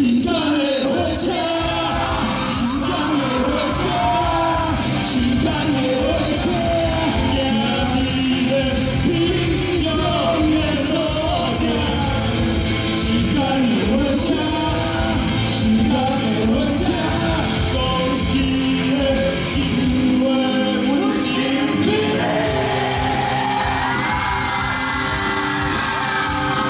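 A solo singer sings a pop song into a microphone over a karaoke backing track, amplified in a large hall, with a long sliding note held near the end.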